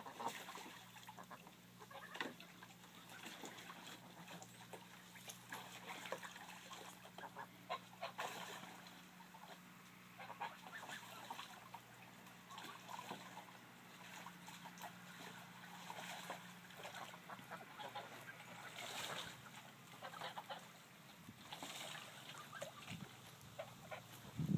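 Domestic geese calling with scattered soft honks, mixed with intermittent splashing as a goose bathes in a small tub pond.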